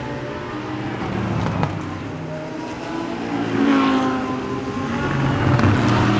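GT3 race car engines at speed. One car passes with its pitch dropping about four seconds in, and another grows louder toward the end.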